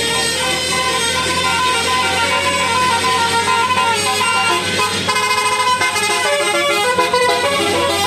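Telolet bus horn, a multi-tone air horn, playing a quick tune whose notes step up and down, over a bus engine's low running hum.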